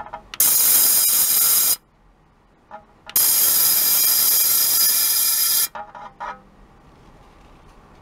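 A handheld electric vibrating device buzzing loudly and brightly in two bursts, one of about a second and a half and a longer one of about two and a half seconds. Short faint chirps come just before and after each burst as it starts and stops.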